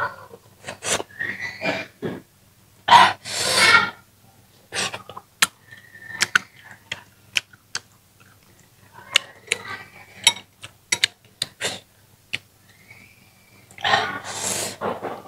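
Close-miked eating sounds of a person chewing chili-braised goby fish: many short wet mouth clicks and lip smacks, with two longer hissing sucks about three seconds in and near the end.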